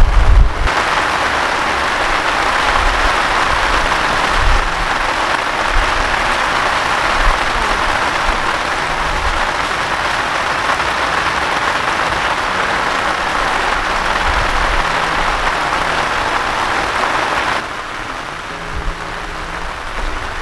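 Heavy rain pelting a tent, a dense steady hiss, with low rumbles near the start. The rain noise drops off abruptly near the end.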